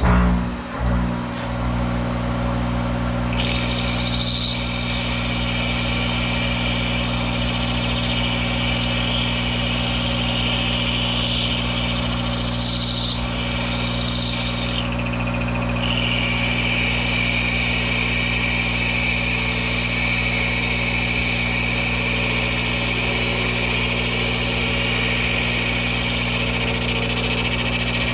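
Monarch 10EE toolroom lathe starting up and running steadily with a low hum, joined about three seconds in by a steady high hiss of the tool taking a light cut to clean up a chewed-up bore surface; the cutting hiss breaks off briefly twice near the middle.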